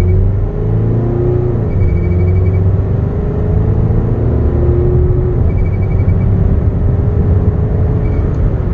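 2.8 L Duramax turbodiesel fitted with a Garrett PowerMax turbocharger, pulling at full throttle, heard from inside the cab. A deep steady rumble carries an engine tone that climbs and then drops back at each upshift.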